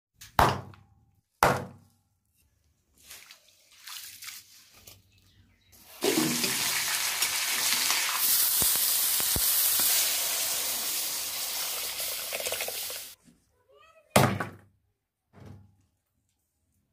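A heavy knife chopping raw meat on a wooden block: two sharp chops at the start and two more near the end. In between, meat sizzling hard in a hot pan for about seven seconds, with a few clicks of stirring, starting and stopping abruptly.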